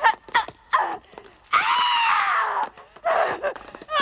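A woman screaming and crying out as she struggles against being held back: several short cries, then one long scream about a second and a half in that falls slightly in pitch, and more cries near the end.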